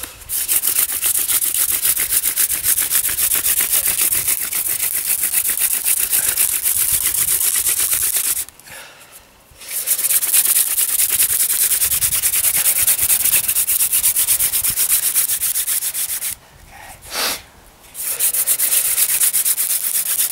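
Hand drill friction fire: a Jerusalem artichoke stalk spindle spun back and forth between the palms, grinding in a white pine hearth board with a fast rhythmic rubbing, stopping briefly twice. The drilling is working the hearth up to smoke.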